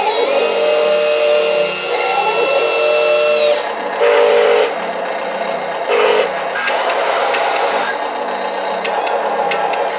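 Small electric gear motors of a Huina 1:14 metal RC wheel loader whining as the loader arm and bucket are worked by remote. One long run lasts about three and a half seconds, followed by short runs about four and six seconds in.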